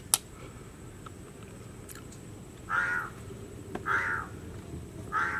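A crow cawing three times, a little over a second apart, each caw short. A single sharp click comes just after the start.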